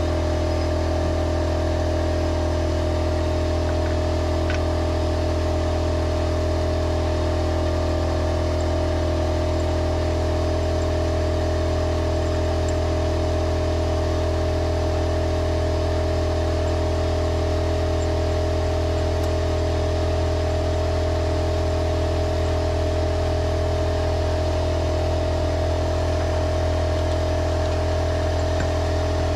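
Steady, unchanging drone of a running motor, holding one pitch throughout.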